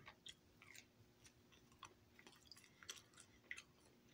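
Faint chewing of a mouthful of pizza, with soft, irregular crackles and mouth clicks.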